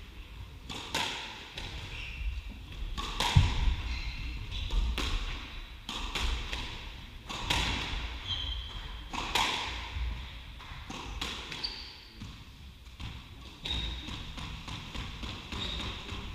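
Squash rally: the ball is struck by rackets and knocks off the court walls every second or two, with short shoe squeaks on the court floor in between.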